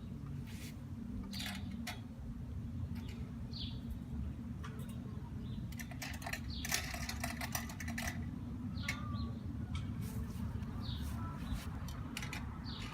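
Scattered clicks and light rattles, with a dense run about six to seven seconds in, from greenhouse shelves being fitted, over a steady low rumble. A few short, falling bird chirps come through now and then.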